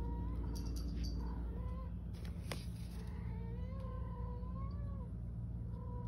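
Cat meowing: several drawn-out, wavering meows, the longest lasting about two seconds near the middle, over a steady low hum. A single sharp click comes about two and a half seconds in.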